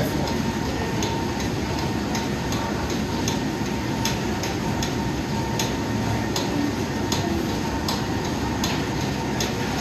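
Busy gym ambience: a steady rush of running cardio machines and air handling, with light clicks about twice a second.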